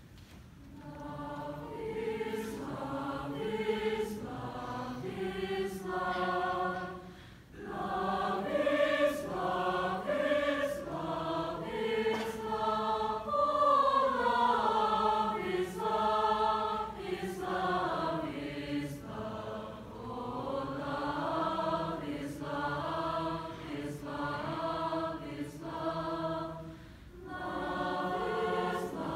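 Large mixed high school choir singing in parts: sustained chords moving in phrases, beginning about a second in, with brief breaths between phrases about seven seconds in and near the end.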